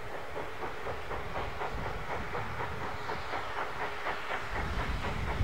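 Rebuilt Bulleid 'Battle of Britain' class three-cylinder steam locomotive 34059 under way, its exhaust beats coming in a quick even rhythm over a steady hiss of steam. A deeper rumble builds near the end.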